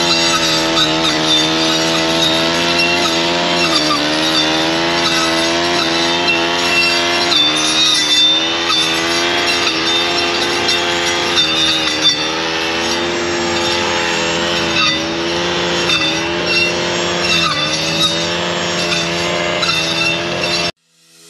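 Gas brush cutter fitted with a saw blade, its engine running at high revs and sagging briefly in pitch several times as the blade takes load in thick weeds. The sound cuts off suddenly near the end.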